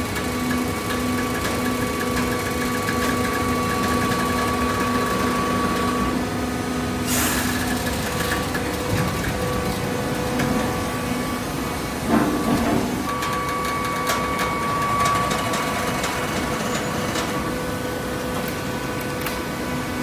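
Hydraulic baler running: a steady machine hum with several held whining tones from its motor and hydraulic pump. A short burst of noise comes about seven seconds in, and a louder knock with rattling around twelve seconds in.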